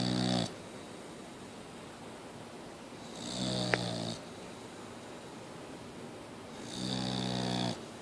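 Boxer dog snoring in slow, regular breaths: three rattling snores about three and a half seconds apart, each lasting about a second. A sharp click falls in the middle of the second snore.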